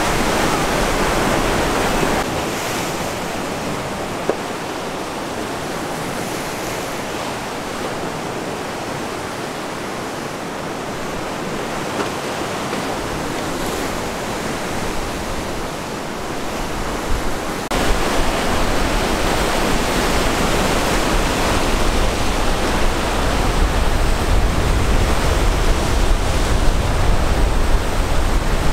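Sea surf: waves surging and breaking against rocks in a continuous rushing wash. About two-thirds of the way through it becomes louder and closer, with a deep low rumble underneath.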